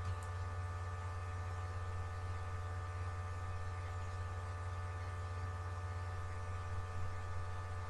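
Steady electrical hum with a set of fixed higher buzzing tones, unchanging throughout: mains hum on the recording.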